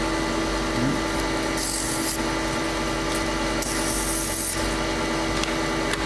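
Wood lathe running with a steady motor hum, and a hand-held tool or abrasive scraping the spinning wooden workpiece in two short hissing strokes, about two and four seconds in, to knock the corner off the turned piece.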